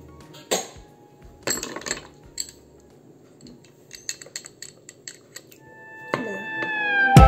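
Drinking glass knocking on a tabletop a few times, then a quick run of small clinks as a metal straw stirs the drink in the glass. Music swells in near the end.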